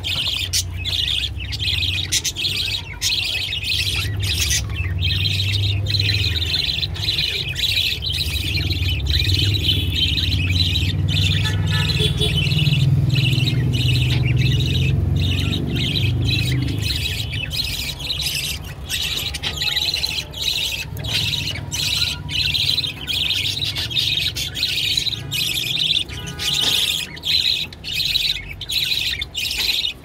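Budgerigars chattering continuously, a dense run of short high chirps and squawks, over a low steady hum.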